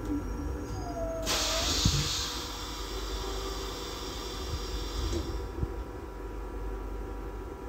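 Inside a Uetlibergbahn Be 520 railcar, a brief squeal, then a sudden loud hiss of compressed air from the railcar's pneumatic system that tails off over about four seconds, over a low steady rumble.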